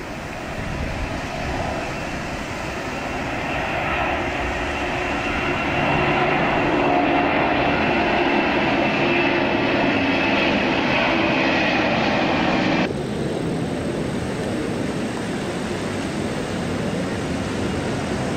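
A McDonnell Douglas MD-11 trijet's engines at takeoff thrust as it lifts off and climbs out, the jet noise and high turbine whine growing louder as it comes close. About thirteen seconds in, the sound cuts suddenly to a duller, steady jet noise from a Boeing 747's four engines on its takeoff roll.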